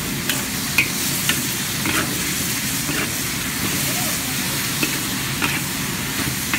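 Wild hog pork stir-frying in a hot pan of sweet and sour sauce: a steady sizzle, with a utensil clinking and scraping against the pan a few times as the meat is stirred.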